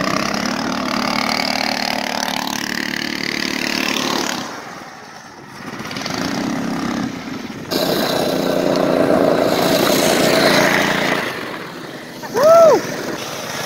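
Small go-kart engines running and revving as karts drive across snow, in several short clips that cut abruptly. Near the end comes a short loud shouted 'woo'.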